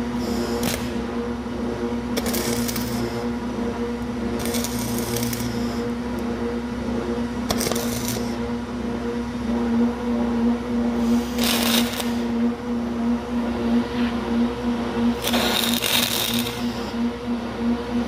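Electric arc welding on steel: about seven short crackling bursts as the arc is struck again and again, over a steady pulsing hum.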